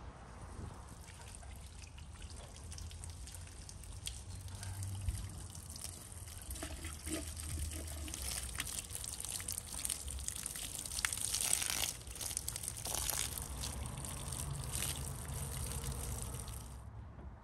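Water pouring and trickling, with scattered small knocks; the pouring stops abruptly near the end.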